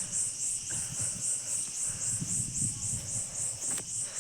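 High-pitched insect chirping, pulsing evenly about four times a second, with an uneven low rumble underneath.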